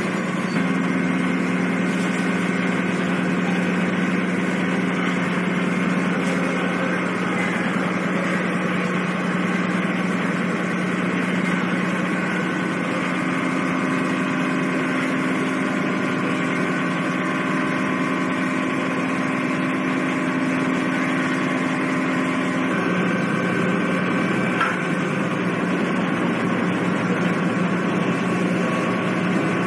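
Car ferry's diesel engines and machinery running with a steady drone, heard from the deck. A second, higher hum joins for long stretches and drops out about three-quarters of the way through.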